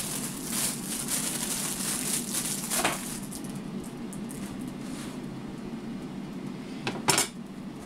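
Plastic bread bag crinkling and rustling as brioche buns are pulled out of it, dying away after about three seconds, then a sharp knock near the end. Under it is the steady hum of an air fryer running.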